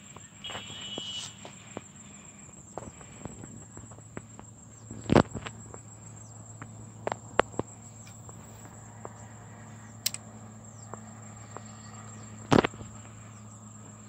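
Insects chirping in a steady high trill, with scattered light clicks and two sharp knocks, one about five seconds in and one near the end.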